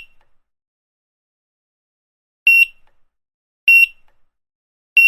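Grocery checkout barcode scanner beeping: three short, identical high beeps, the first about two and a half seconds in and the next two a little over a second apart, with silence between them.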